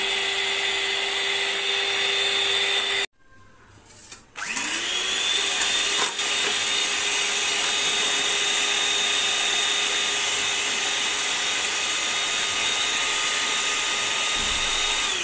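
Electric hand mixer whirring steadily as its beaters whisk eggs in a steel bowl. It cuts out about three seconds in, starts again a second later with a rising whine as it spins up, runs steadily, and begins to wind down at the very end.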